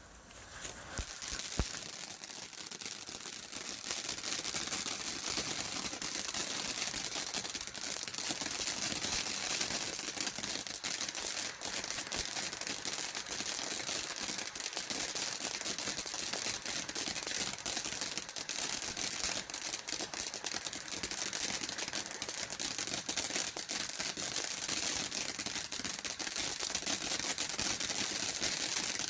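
Two firework fountains burning at once, a steady hissing spray of sparks full of fine crackling, which starts about a second in.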